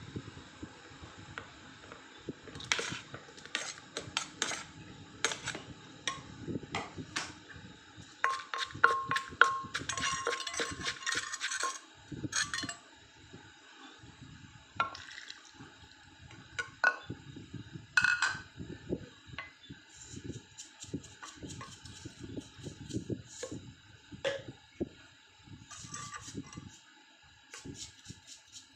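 Wooden pestle knocking and scraping irregularly in a clay mortar as dried chillies, garlic and tomato are pounded for papaya-style salad, with seasonings poured in along the way. The knocks are densest and loudest around the middle.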